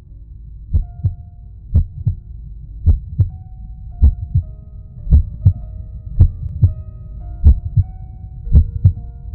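Slow, even pulse of paired low thumps, like a heartbeat, about one pair a second, over a low rumble and held tones that step to a new pitch every second or so.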